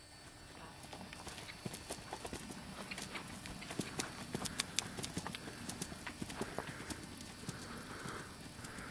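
Saddlebred horse's hoofbeats in an irregular clip-clop, its front hooves shod with plates and its hind hooves bare. The hoof strikes are loudest and closest together about halfway through.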